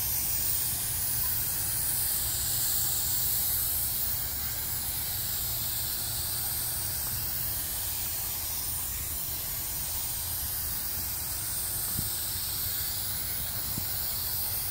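Compressed-air spray gun hissing steadily as it sprays activator over hydrographic film floating on the dip tank's water, with a low hum underneath.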